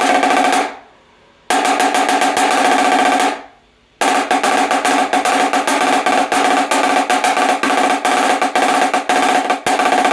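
Marching snare drum played in fast rolls with its snare guts tightened too far ('choked'), so the drum rings with a pitched tone and gives less response, needing a lot of power. A short roll stops just under a second in, a second runs from about 1.5 to 3.5 seconds, and a long one starts about 4 seconds in.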